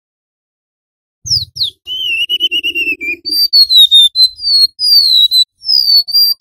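Golden-bellied gerygone singing: about a second in, two quick steeply falling whistles, then a short wavering trill, then a run of sweet, flute-like slurred whistles, most of them falling in pitch.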